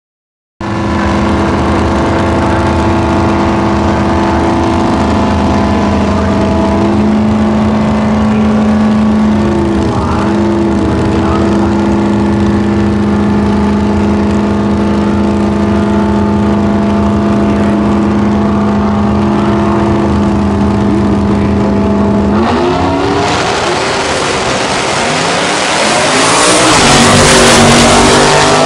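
Two drag-racing pickup truck engines running at a steady pitch at the starting line. About 22 seconds in they launch and accelerate hard away down the strip, getting louder toward the end.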